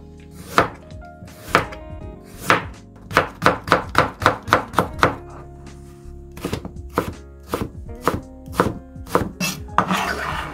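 Chef's knife chopping carrot on a cutting board: a few slow cuts about a second apart, then quick runs of about three to four chops a second. Near the end the blade scrapes the minced carrot together on the board.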